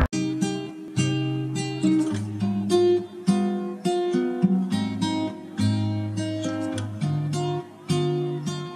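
Background music: acoustic guitar strumming chords, a new chord struck about once a second and left to ring.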